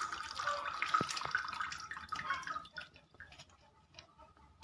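Ginger and palm-sugar drink being worked in a glass: liquid sloshing and trickling with light clinks against the glass, one sharper clink about a second in. It grows fainter over the last second and a half.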